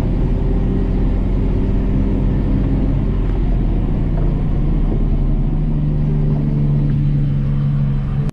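Iveco bus's diesel engine running steadily under load on a steep downhill, with low rumble from the tyres on a gravel road, heard from inside the cab. About five and a half seconds in the engine note shifts and one low tone grows stronger.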